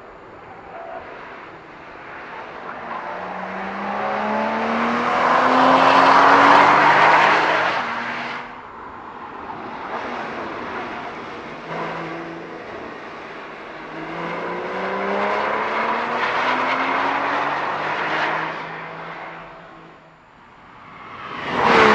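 Porsche Boxster S (981) flat-six engines accelerating past one after another, each rising in pitch and loudness as the car closes in, then falling away. Two full passes, with a third car arriving loudly at the very end.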